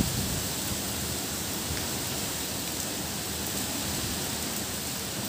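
Heavy rain falling steadily, an even hiss with no single drops or thunder standing out.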